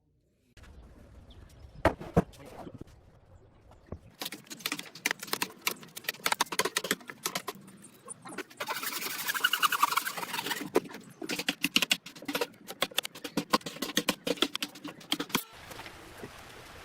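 Irregular sharp taps and knocks, two loud ones about two seconds in, then a fast uneven run of clicks with a stretch of scraping partway through, from hand work on wood.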